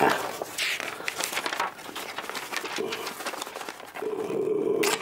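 Paper crackling and tearing as a bank check is handled and ripped in two, strongest in the first two seconds. A short steady hum-like tone comes near the end.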